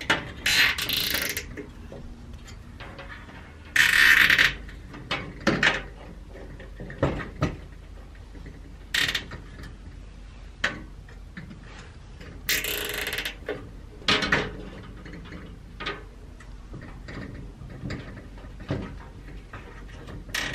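Plastic zip ties ratcheting as they are pulled tight, in several short pulls, between light clicks and knocks of a wire grid panel against the cabinet frame.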